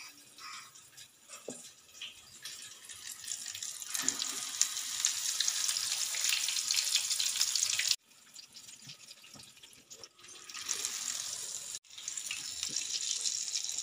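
Battered bajji deep-frying in hot oil in a kadai: a dense sizzling crackle that starts about four seconds in, after a quieter start, and cuts off abruptly twice.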